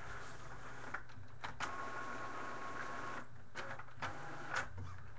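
A small motor whirring for about three seconds with a steady whine, then stopping, with a few sharp clicks scattered through.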